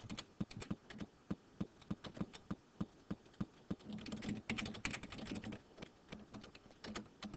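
Typing on a computer keyboard: a quick, uneven run of key clicks as a name is typed in.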